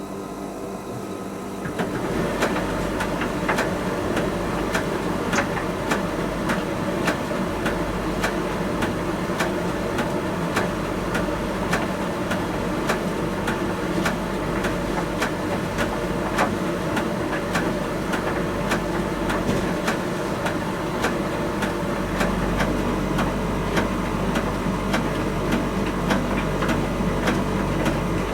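Miele T1 heat pump tumble dryer running: a steady hum, then about two seconds in the drum starts turning and the load tumbles inside it with a constant run of small knocks and clicks.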